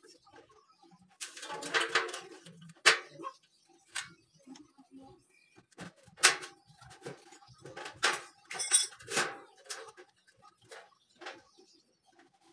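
Light-steel frame profiles being handled: scattered metal knocks and clatter with some scraping, the sharpest knocks about 3, 6 and 8 to 9 seconds in.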